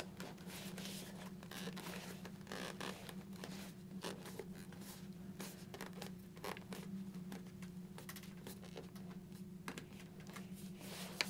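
Faint scratching and rustling of a fabric-covered helmet cheek pad being pressed and worked into place along the helmet's inner edge, over a steady low hum.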